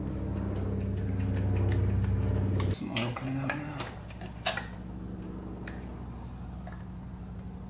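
A steady low machine hum that cuts off suddenly about three seconds in, followed by light metallic clinks and clicks as the quad's engine side cover and its hardware are handled.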